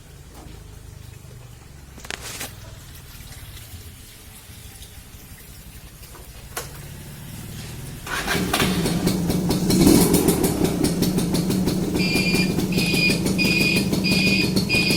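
Yamaha V80 two-stroke moped engine starts about halfway through, after a couple of quiet clicks. It then runs with a fast, rattly beat and revs up briefly about two seconds after catching.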